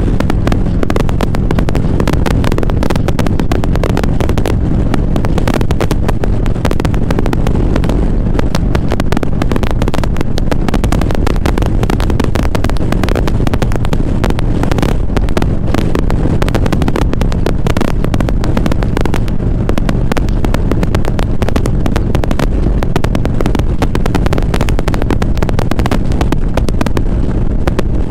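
Motorcycle engine running steadily at road speed under heavy wind buffeting on the microphone, which crackles throughout.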